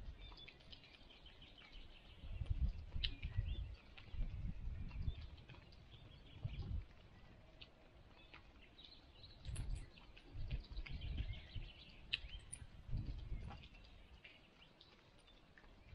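Small birds chirping now and then in the trees, short high calls scattered through. Low gusts of wind rumble on the microphone, coming and going.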